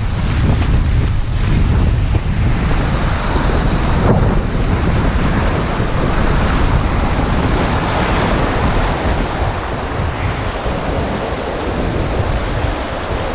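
Whitewater of a river rapid rushing steadily around a canoe, with wind rumbling on the microphone.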